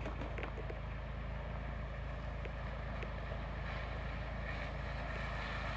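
Steady rushing of falling water with a heavy low rumble, even and unbroken.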